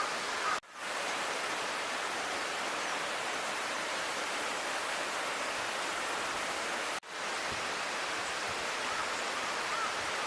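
Steady rushing of water in a mountain stream with waterfalls. The sound cuts out abruptly and fades back in twice, about half a second in and about seven seconds in.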